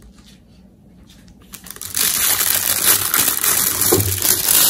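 Clear plastic piping bag crinkling loudly as gloved hands handle it, starting about two seconds in.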